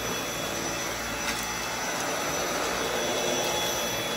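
Dyson V8 cordless stick vacuum running steadily: an even rush of air with a thin, high motor whine over it, and a faint click about a second in.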